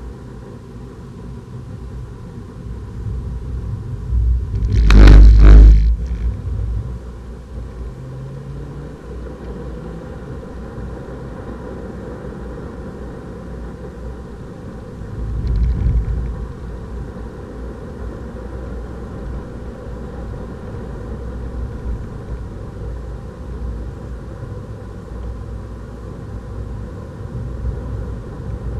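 Inside the cabin of a Renault Clio RS 200 with its 1.6-litre turbocharged four-cylinder, driven fast on a wet circuit: a steady low rumble of engine and road noise. A loud thud comes about five seconds in and a smaller one about fifteen seconds in.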